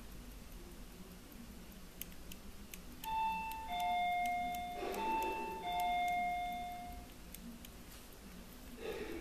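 A quarter-repeater pocket watch's gongs strike two ding-dong pairs, a high note and then a lower one, twice, each note ringing on. A soft handling thump falls between the pairs and another comes near the end.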